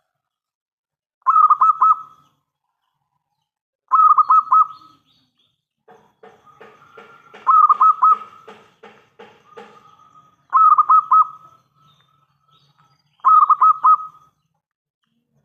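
Zebra dove (perkutut) singing: five short phrases of quick, rolling cooing notes, one every few seconds. In the middle a faster run of soft clicks, about three or four a second, runs beneath one of the phrases.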